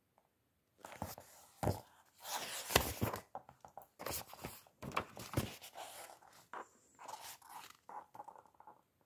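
Paper pages of a book being turned, rustling and scraping in a series of short bursts with a few sharper knocks of handling.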